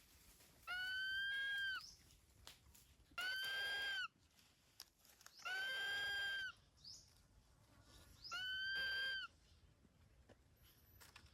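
A bird calling four times, each call a drawn-out, steady-pitched screech about a second long, a couple of seconds apart.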